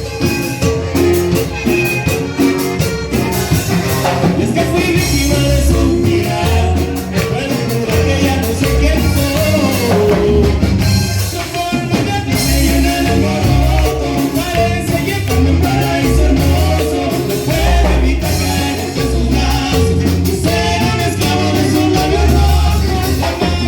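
Band music with singing over a steady bass line and beat, in an upbeat Latin style.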